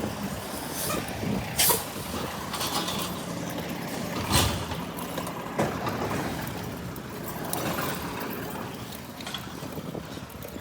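A heavy road vehicle such as a truck running, with a few sharp knocks, the loudest about a second and a half in and about four seconds in.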